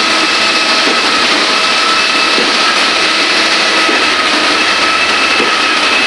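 Ready-mix concrete truck and concrete pump running loud and steady, an engine drone with a constant high whine over it, while concrete slides down the mixer chute into the pump hopper.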